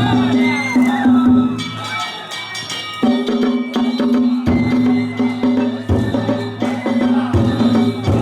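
Danjiri festival music: repeated drum and gong strikes over a sustained low tone, dipping briefly about two seconds in before picking up again.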